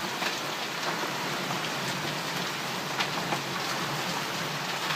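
Torrential rain pouring down in a violent storm: a steady, dense hiss with a few sharper hits standing out.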